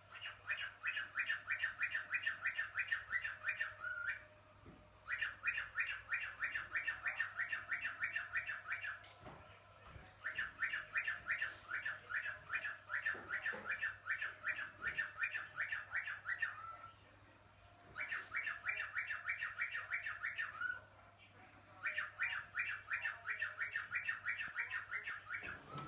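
Small pet parrot whistling in runs of rapid, high, evenly repeated notes. Each run lasts a few seconds and is followed by a short pause; there are five runs.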